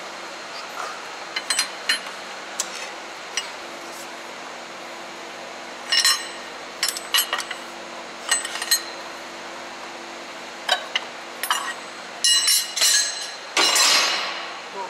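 Metal clinks and knocks of a ring spanner working the nut of a cylinder-liner puller on a Scania DC12 engine block, in irregular bursts as the liner is drawn out, with a longer rasping noise near the end.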